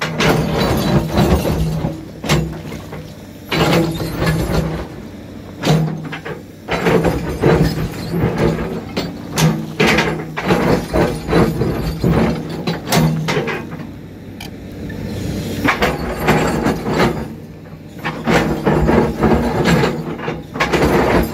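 Caterpillar D7 bulldozer at work: its diesel engine runs steadily under many irregular clanks and knocks, easing for a moment about two-thirds of the way in.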